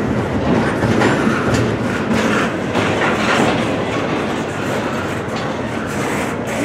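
A long, loaded CSX container freight train rolling past: a steady rumble of cars with wheels clacking over the rail joints.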